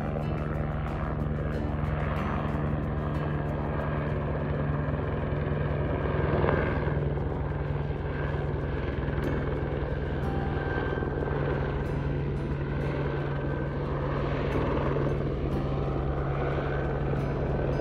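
A steady, unbroken low drone with a constant pitch, like a motor or aircraft engine.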